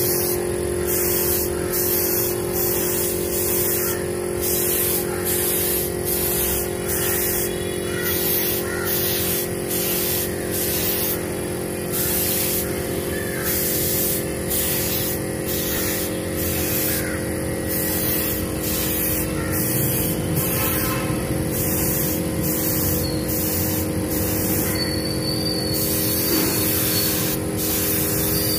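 Compressed-air spray gun hissing in repeated short bursts as the trigger is pulled and released, over the steady hum of the air compressor that feeds it.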